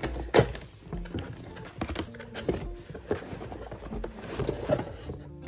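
Packing tape being peeled and torn off a cardboard box and the cardboard flaps pulled open by hand: irregular crackling, tearing and scraping noises.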